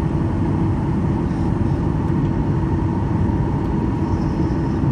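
Steady cabin noise of a Boeing 737-800 taxiing, its CFM56 jet engines running at low power under a constant low rumble with a steady hum.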